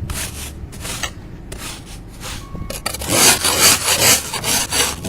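Snow being scraped off a vehicle, a run of rasping strokes that get louder about three seconds in.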